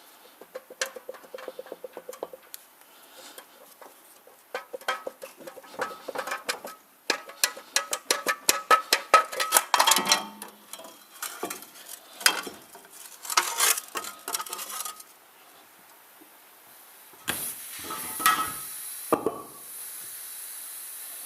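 Hand tools working on metal: fast runs of sharp metallic clicks and clinks, densest near the middle. From about two-thirds of the way in, a steady hiss of a spray or air blast begins, with a couple of knocks in it.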